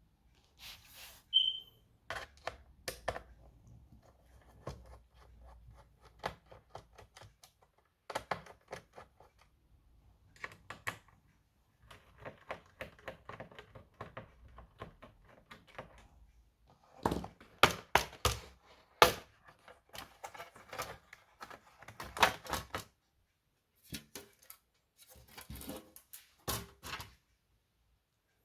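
Irregular clicks, taps and small knocks of hard plastic and metal parts being handled on a laptop, coming in clusters with short pauses, densest and loudest past the middle.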